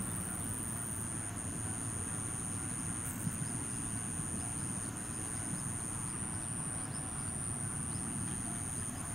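Outdoor rural ambience: a steady low rumble with a continuous high-pitched insect whine and a few faint bird chirps.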